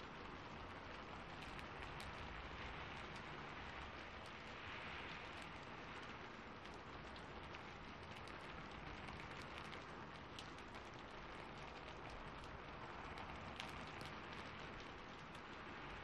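Steady rain falling, with small sharp crackles scattered throughout.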